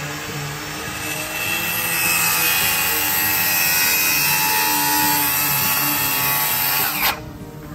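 Corded circular saw cutting through a sheet of plywood, the blade running loud and steady through the cut. It stops abruptly about seven seconds in.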